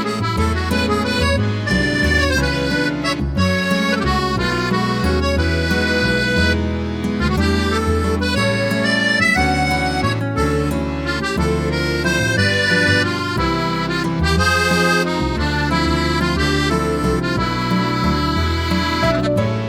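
Background music led by an accordion, with a steady bass line under a moving melody.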